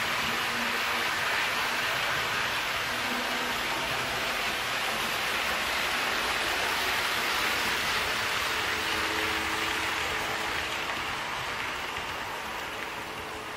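HO-scale Acela model train running on the layout's track: a steady rushing hiss of wheels on rail, with a faint hum joining about halfway, growing fainter near the end.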